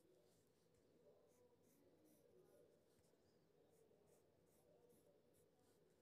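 Faint scratching of a wooden graphite pencil sketching on drawing paper, in short light strokes about two to three a second.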